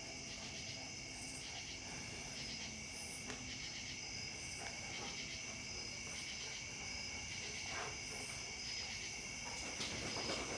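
A steady chorus of insects, trilling continuously at several high pitches.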